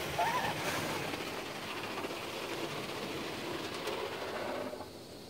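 Spinning soft-cloth brushes of a Ryko SoftGloss Maxx rollover car wash scrubbing over the car, heard from inside the cabin as a steady rushing and swishing. A short squeak comes about a quarter second in, and the noise falls away sharply near the end.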